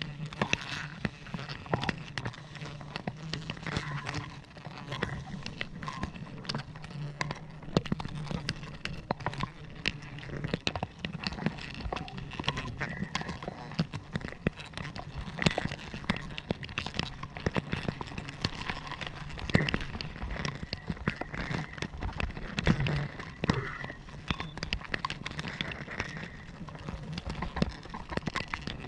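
A swarm of giant honey bees (Apis dorsata) buzzing close around the microphone in a steady low hum, with many sharp clicks and crackles over it.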